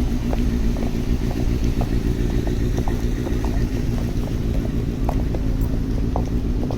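City street ambience: a steady low rumble of road traffic, with many light, scattered taps throughout.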